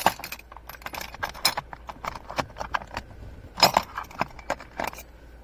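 Metal sockets clinking against each other as they are picked through in a socket set: a string of irregular sharp clinks, the loudest cluster about three and a half seconds in.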